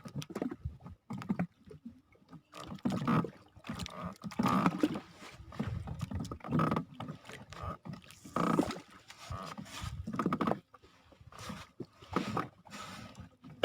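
Paddle strokes in water as a small boat is rowed, a swell of splashing about every two seconds.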